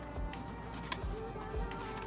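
Background music with a few sharp clicks and taps from a flathead screwdriver prying a glued plastic front panel off a wooden subwoofer cabinet.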